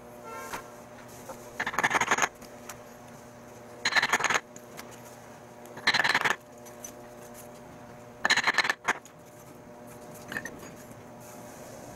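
Short clusters of quick hammer taps, repeating about every two seconds, with a faint steady hum underneath.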